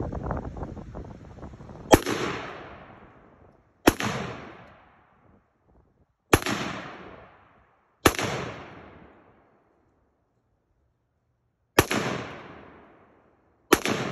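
Rifle with a 14.5-inch barrel firing six shots of 5.56 mm green-tip (M855) ammunition, about two to four seconds apart. Each sharp crack is followed by an echo that dies away over about a second and a half.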